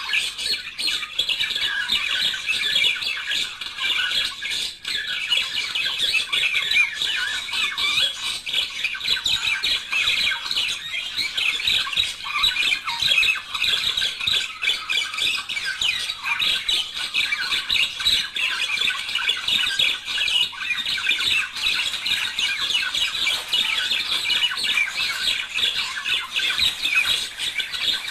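Budgerigars chattering and warbling continuously, a dense stream of fast chirps, squawks and trills with no pauses.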